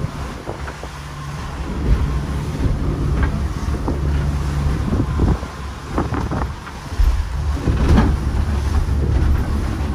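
Catamaran under way: a low drone from its motor, with wind buffeting the microphone and water slapping and splashing against the hulls a few times.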